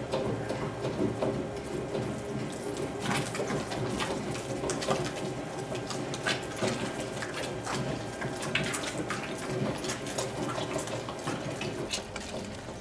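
Malka dough mixer running with a steady hum as it kneads pizza dough, while a thin stream of water trickles into the bowl; irregular wet clicks and splashes come from the dough in the turning bowl. This is the last water going in slowly at the end of kneading.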